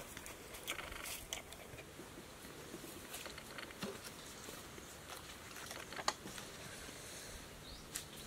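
Quiet rustling and scattered light taps from handling dragon fruit: peeling the skin and setting whole fruits into a plastic basket. One sharper click comes about six seconds in and another near the end.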